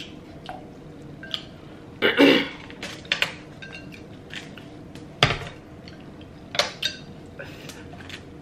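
Wooden chopsticks and a large glass bowl of pho knocking and clinking against the table as they are handled. There is a handful of separate knocks, the loudest about two seconds in and a sharp one a little after five seconds.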